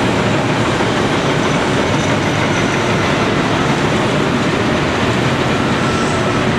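Caterpillar 345C L excavator's diesel engine running steadily and loud.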